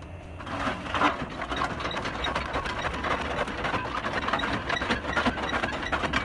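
Concrete block-making machine running, a dense metallic rattle and clatter of its moving parts that starts about half a second in and carries on steadily.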